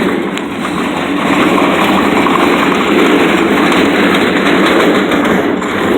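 Casters of a Husky rolling tool box rolling downhill over pavement, a steady rattling rumble.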